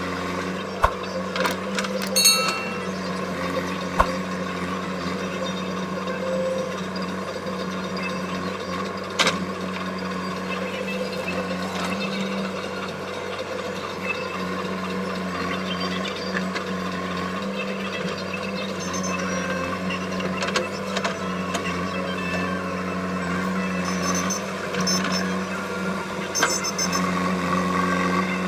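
JCB 3DX backhoe loader's diesel engine running steadily as the backhoe digs through mud and weeds, with a few sharp knocks and clanks from the arm and bucket scattered through.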